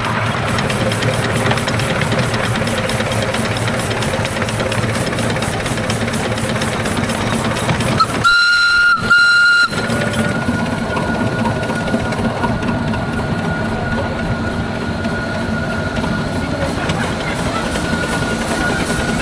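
Romulus-type miniature steam locomotive running steadily, with a loud steam whistle sounding two short blasts about eight seconds in. After the blasts a faint whistle tone keeps sounding, the sign of a slightly leaking whistle valve.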